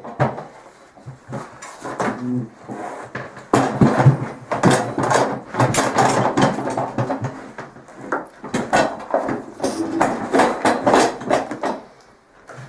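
Irregular knocks, clunks and scraping of a metal OMC sterndrive unit being handled and turned around on its stand, busiest in the middle and dying down near the end.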